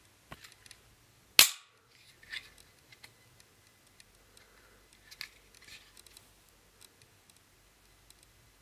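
FN Five-seven pistol being handled: one loud, sharp mechanical snap about a second and a half in, among several softer clicks of its parts.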